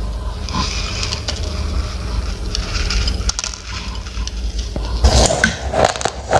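Dry crackling and scraping from uncooked rice grains, turning into louder, crisp crunches about five seconds in as the raw rice is chewed. A low rumble underlies the first part.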